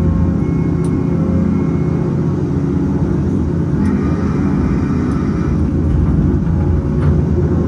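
Cat 568 log loader's diesel engine running steadily under hydraulic load as the grapple picks up a bundle of fir pulp logs, heard from the cab.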